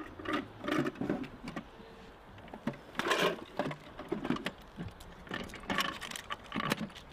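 Metallic clicks and rattles of a machine gun being handled, its top feed cover worked open as an ammunition belt is loaded, in irregular clicks with a louder cluster about three seconds in.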